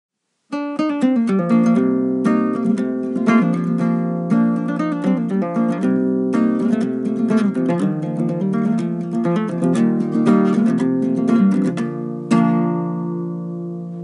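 Intro music: acoustic guitar playing quick plucked notes. It comes in about half a second in and ends about twelve seconds in on a final chord that rings out.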